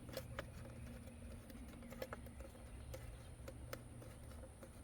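Faint, scattered clicks and ticks of a Henry U.S. Survival AR-7 .22 rifle's receiver being screwed into its stock by hand.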